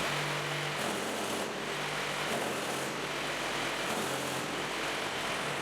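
Concrete block and paving-block making machine running, a steady mechanical clatter. A low hum starts and stops several times, at uneven intervals of about a second.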